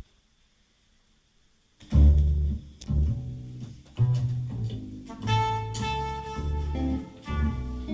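Jazz recording played through Elac EL130 II speakers driven by a Marantz 1090 amplifier: after a click and a short silence, a double bass comes in about two seconds in with strong low notes, joined later by sustained saxophone-like tones.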